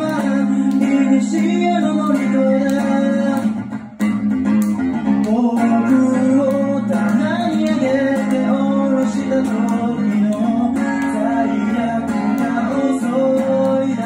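A man singing into a microphone while playing guitar, a live song with the sung melody over guitar chords. The music dips briefly about four seconds in, then carries on.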